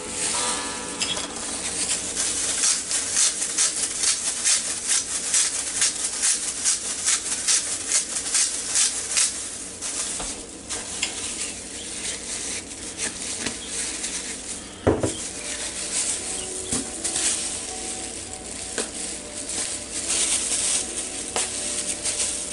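Hand pepper grinder being twisted, grinding peppercorns: a rapid run of gritty rasping strokes that thins out after about ten seconds, with a single knock about fifteen seconds in.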